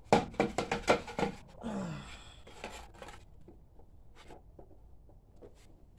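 Battery box being picked up and fitted back into the ATV's battery compartment: a quick run of knocks and clatter in the first second, then scattered lighter clicks.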